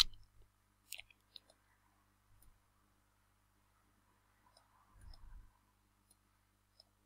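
Computer mouse clicks: one sharp click at the start, then a couple of faint clicks about a second later, over near silence, with a faint low bump about five seconds in.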